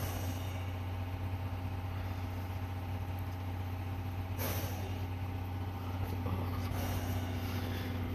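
Steady low engine hum from a stationary 14-series blue passenger train, the running sound of its coach diesel generator, with a short hiss of air about four and a half seconds in.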